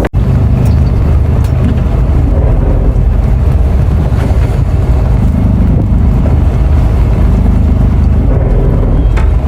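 Engine running steadily under way, a loud low drone.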